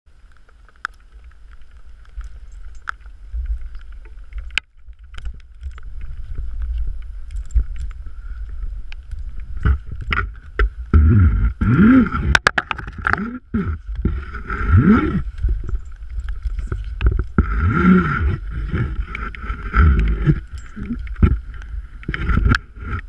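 Rope-climbing gear clicking and rattling as a climber ascends a single rope, over a steady low rumble of wind and handling on the microphone. From about ten seconds in come repeated short pitched sounds that rise and fall.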